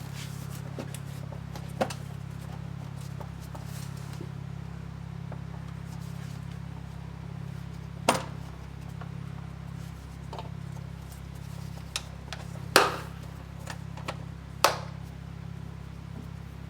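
Scattered sharp clicks and knocks of parts and tools being handled during reassembly work in a car's engine bay, over a steady low hum. The loudest knocks fall in the second half, three of them within about two seconds.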